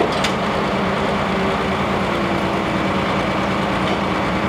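International Harvester 1066 hot farm pulling tractor's engine idling steadily at the end of a pull.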